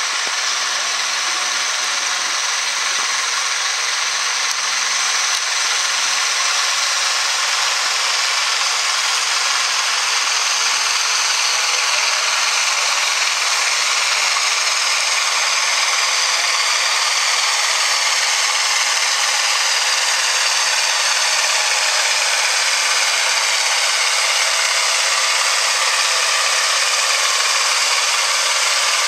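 Turbocharged diesel engine of an International farm tractor running hard under full load while pulling a weight-transfer sled. The sound is loud and steady, and it steps up about five seconds in as the tractor comes closer.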